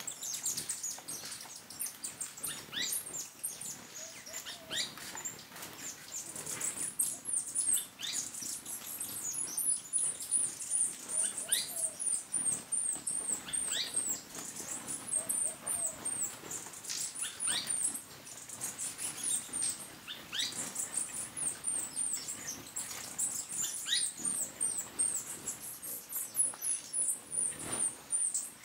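Hummingbirds squabbling at a feeder: a near-continuous twitter of very high, squeaky chip notes, with thin notes sliding sharply downward every second or two.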